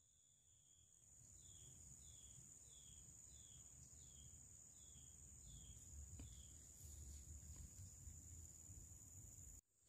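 Faint plantation ambience: a steady high insect drone, with a run of about nine short falling chirps, two a second, in the middle.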